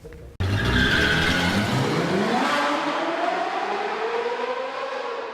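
Car engine accelerating, starting suddenly and climbing steadily in pitch over a few seconds before slowly fading.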